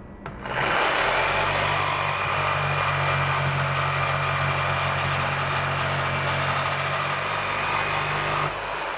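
Corded Black & Decker 3.2 A variable-speed jigsaw switched on and sawing through aluminum angle stock: a steady motor hum under the dense rasp of the blade in the metal. It stops cutting near the end and the motor winds down.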